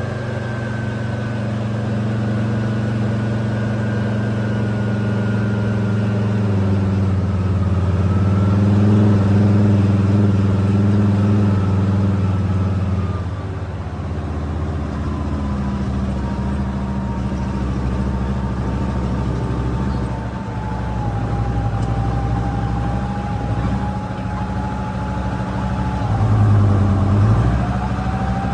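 Type 74 tank's air-cooled ten-cylinder diesel running under way, heard from on top of the tank, with a thin whine that slowly falls in pitch. The engine note swells in the first half, drops briefly about halfway, and surges again near the end.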